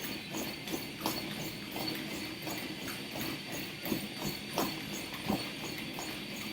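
Running footfalls striking a treadmill belt in an even rhythm, over the steady hum of the machine and a thin high whine.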